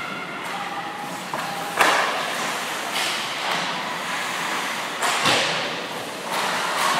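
Ice hockey play: sharp cracks and thuds of pucks and sticks off the boards and goalie pads, with skates scraping the ice, echoing in an indoor rink. The loudest crack comes about two seconds in, and a longer scrape comes near the end as players crash the net.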